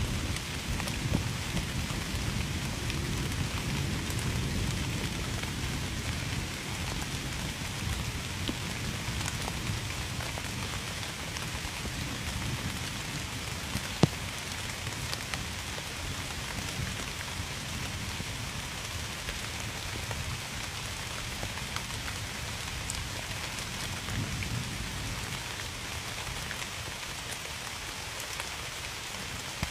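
Steady rain falling on a surface, with scattered individual drops and a low rumble that is strongest in the first few seconds and gradually eases. One sharp tap about halfway through.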